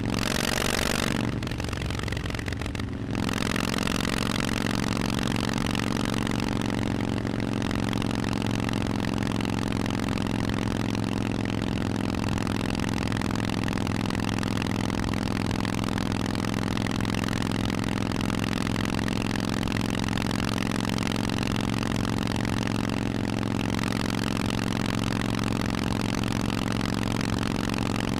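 Harley-Davidson Forty-Eight's air-cooled 1200 cc V-twin running through a Vance & Hines exhaust, with a haze of wind and road noise over it. The engine note is uneven for the first three seconds, dips briefly near the three-second mark, then holds steady.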